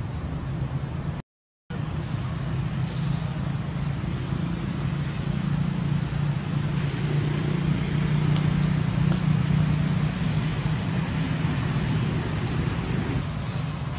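Steady low background rumble with no distinct animal calls, cutting out completely for a moment about a second in.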